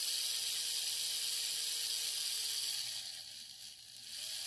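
Small electric motor of an Airfix Royal Scot model locomotive's tender drive running on test leads, its gears and wheels turning with a steady high whirr. It runs fairly quietly, freshly oiled on its gears, armature and axles. It fades about three seconds in and picks up again.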